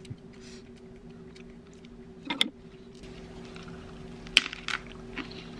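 Quiet table and eating sounds: chopsticks and tableware clicking, with a crisp crunch about four seconds in as a lettuce wrap is bitten, over a faint steady hum.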